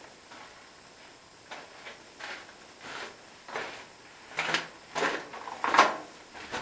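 Footsteps on the stony floor of a narrow rock-cut tunnel, scuffing at an irregular walking pace. The steps get louder from about four seconds in.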